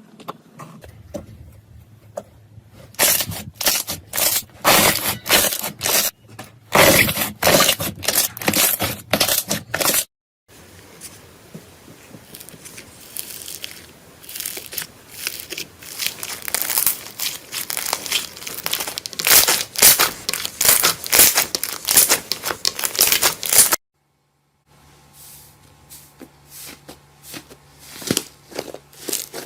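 Slime being squeezed and pressed by hand, giving dense runs of crackling and popping clicks. The sound drops out briefly twice, about a third of the way in and again past three quarters, as one clip gives way to the next.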